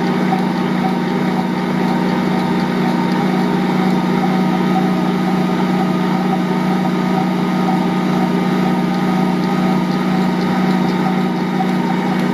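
Ankarsrum Assistent Original stand mixer running at a steady medium speed, its bowl turning a large, firm bread dough against the roller: a steady motor hum with no change in pitch.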